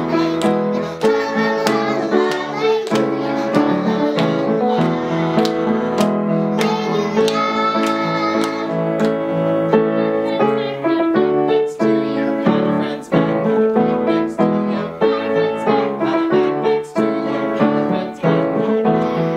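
Three young girls singing a song together in unison, accompanied by a grand piano played in a steady rhythm.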